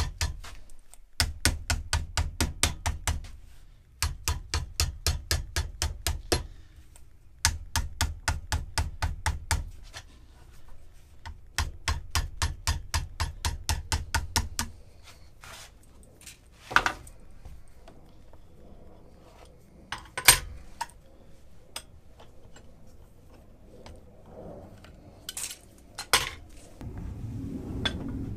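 Soft-faced mallet hammering aluminium sheet over wooden form blocks, hand-forming the flange of a fuel tank end a little at a time. The blows come in fast, even runs of a few seconds each, about six a second, separated by short pauses. These give way to a few single knocks.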